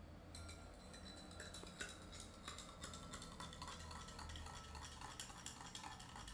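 A metal spoon stirring a glass of milk, with faint, rapid, repeated clinks against the glass.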